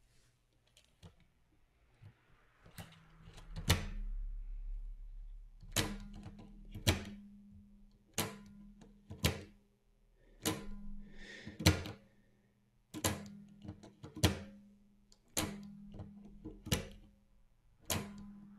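Sony OA-D34V 400k floppy drive mechanism being worked by hand with a floppy disk after fresh silicone-grease lubrication: sharp mechanical clacks in pairs about a second apart, repeating every couple of seconds, as the disk goes in and drops down and comes back out.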